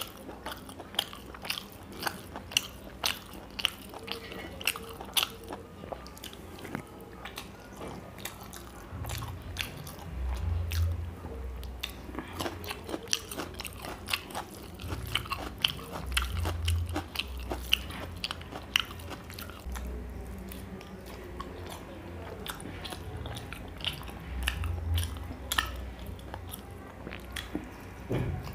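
Close-miked eating sounds: chewing and biting with many wet mouth clicks as rice and a curried chicken leg are eaten by hand, with a few low thuds.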